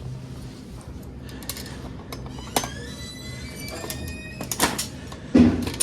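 Coin-operated prize vending machine playing its electronic sound: a click, then a run of rising beeps over a steady hum, then a few clicks and a heavy clunk near the end.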